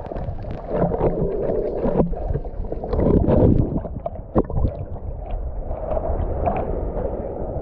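Water sloshing and gurgling close to the microphone, with irregular short knocks.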